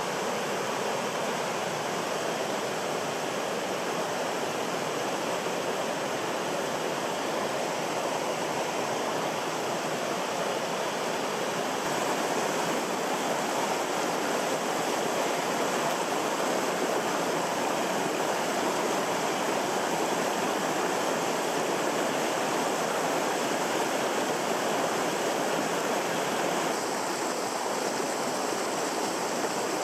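Mountain stream water rushing steadily over rocks, a little louder from about twelve seconds in.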